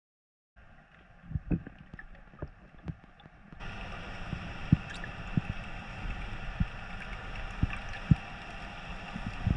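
Muffled water sloshing with irregular low knocks and thumps, starting about half a second in; the sound changes abruptly and becomes fuller a few seconds in.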